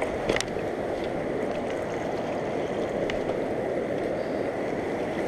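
Fast-flowing river water rushing over shoreline rocks, a steady noise with no letup. One sharp click comes about half a second in.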